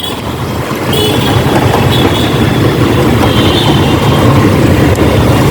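Yamaha R15 motorcycle riding in traffic: a steady rumble of engine and road noise, with wind on the microphone.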